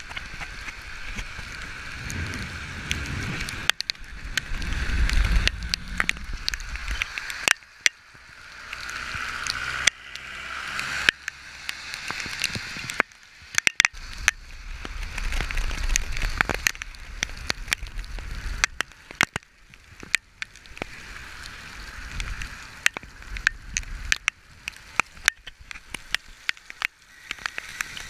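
Road bike riding through a heavy downpour on a wet road: a hiss of water spray from the tyres, gusts of wind rumbling on the microphone, and frequent sharp ticks of raindrops striking the camera.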